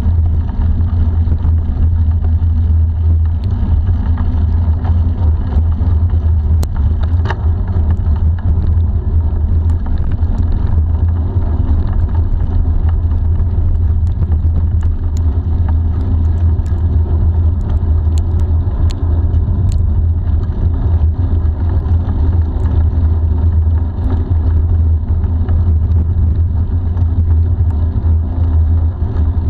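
Steady loud rush of wind buffeting a handlebar-mounted action camera's microphone on a bicycle moving at about 30 km/h, with bicycle tyre noise on asphalt underneath and a few small clicks scattered through.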